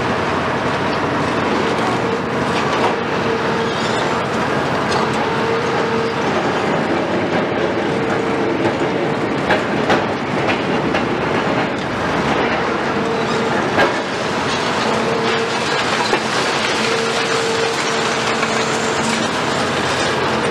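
Cat 374 long-front demolition excavator at work: its Cat C15 diesel engine runs under load, with a steady clatter of concrete and debris breaking and falling. A held tone comes and goes several times, and a few sharper cracks stand out midway.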